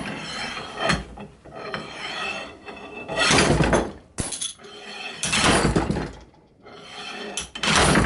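A slide hammer is being yanked to pull the screwed-in core out of a Zeta padlock clamped in a steel vise. It makes a series of hard metal clanks with a brief ringing, about one every one to two seconds.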